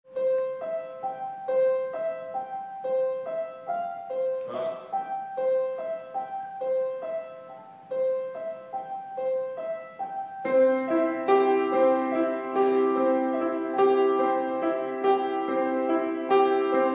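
Piano playing a repeating figure of single high notes. About ten and a half seconds in, lower notes join and the playing grows fuller and louder.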